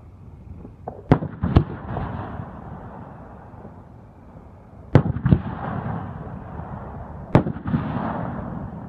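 Aerial fireworks shells bursting overhead: sharp bangs, two in quick succession about a second in, two more about five seconds in, and one near seven and a half seconds, each trailed by a rolling echo.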